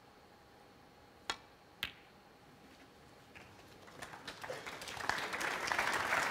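Two sharp clicks about half a second apart: a snooker cue tip striking the cue ball, then the cue ball hitting the yellow. From about the middle, audience applause builds steadily louder as the yellow is potted.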